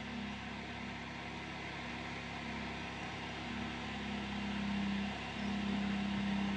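Heavy digging equipment's engine running steadily, the backhoe and tractor working on the excavation. It grows a little louder about four seconds in and dips briefly just after five seconds.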